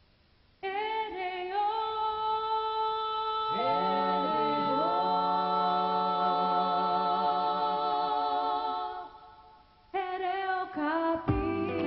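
A vocal group sings an unaccompanied opening in close harmony, holding long chords. Lower men's voices join the higher voices after a few seconds. The chord fades out, and a new sung phrase starts about ten seconds in, with the band's guitar and bass coming in just before the end.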